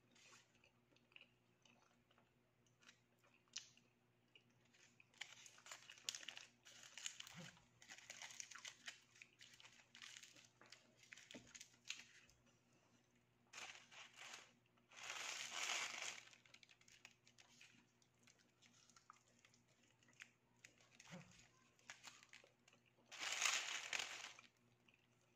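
Aluminium foil around a sandwich crinkling and crackling as it is handled and peeled back: a run of small crackles, then two louder, longer crumples, one about fifteen seconds in and one near the end, with quiet chewing in between.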